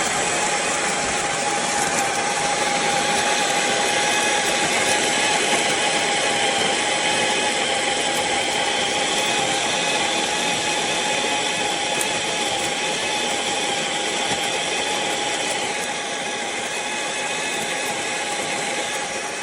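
Electric conical burr coffee grinder running steadily as it grinds beans, a loud motor whine with a steady pitch; the sound eases slightly about sixteen seconds in.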